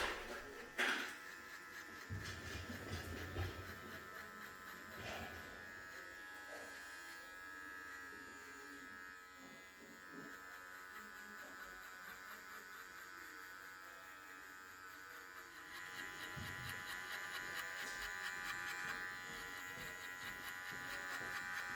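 Electric hair clippers running with a steady buzz, louder for the last several seconds.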